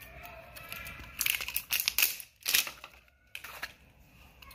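Plastic wrapping and cardboard packaging crinkling and tearing as a cosmetic cream jar is unwrapped by hand, in several short bursts.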